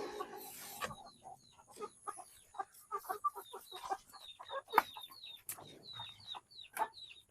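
Chickens clucking, with a run of short, high peeps from young chicks, repeating several times a second from about two seconds in. A brief rustle in the first second.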